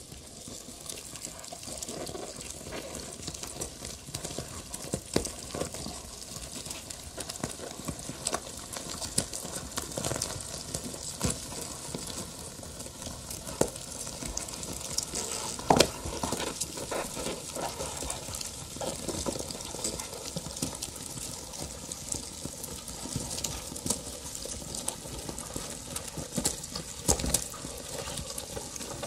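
Live experimental noise performance: a dense, unbroken texture of crackling and rustling with many scattered sharp clicks, one louder click about halfway through.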